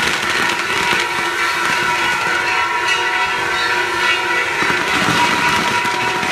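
Festival fireworks showering sparks, hissing steadily, with a high whistling held over the hiss.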